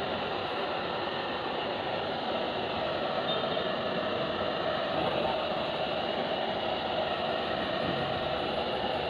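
Handheld hair dryer running steadily, blowing hot air onto a vinyl sticker to soften its adhesive and work out air bubbles.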